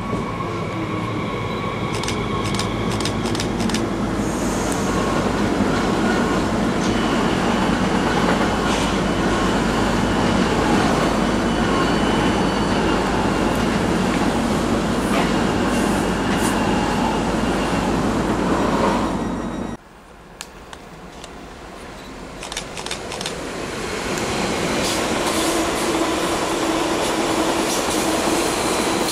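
ICE high-speed train running past close by, a loud steady rush of wheel and running noise with a few sharp rail clicks about two to four seconds in; the sound cuts off abruptly about two-thirds of the way through. Then a Stadler FLIRT electric multiple unit approaches, its running noise building over a couple of seconds and holding steady as it passes.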